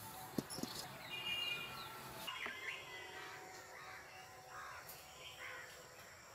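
Birds chirping and calling, crows among them, over a faint steady outdoor background. A single sharp knock about half a second in, as the metal kadai is set down on the clay stove.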